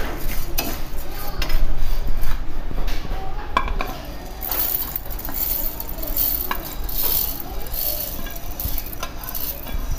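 Dry-roasted sago pearls scraped and stirred in a steel pan, with scattered clinks of metal on metal, then poured out so they rattle into the steel jar of a mixer grinder. The sound is loudest in the first few seconds.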